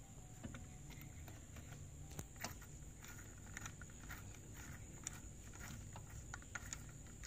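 Faint, irregular metallic clicks and light taps as wheel nuts are spun by hand onto the studs of a car's alloy wheel.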